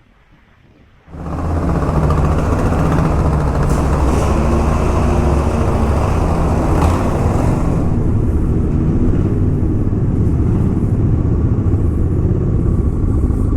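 Motorcycle engine running steadily under way, with wind and road noise. It comes in suddenly about a second in, after a brief quiet stretch.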